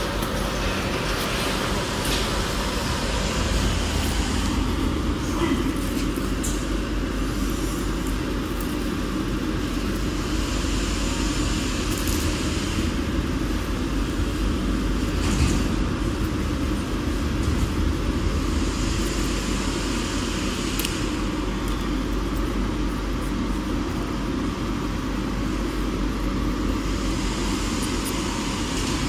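Automatic shrink-wrap packaging machine running: a steady mechanical hum that does not change, with a few short clicks and brief high hissing sounds at times.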